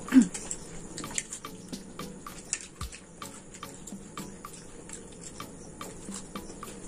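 Eating sounds: chowmein noodles being slurped and chewed, with metal forks clicking irregularly against ceramic plates. A brief low hum with a falling pitch comes right at the start.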